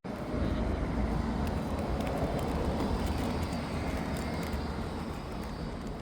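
A vehicle going by: a steady rumbling noise that swells in the first couple of seconds and then slowly fades.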